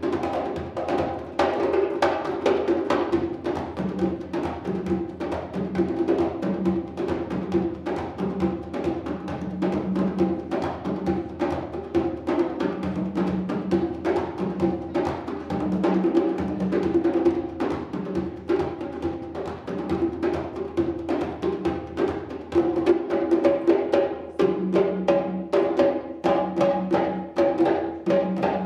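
Hand drumming duet: congas and a djembe struck with bare hands in a dense, steady rhythm, with deep drum tones recurring in short phrases.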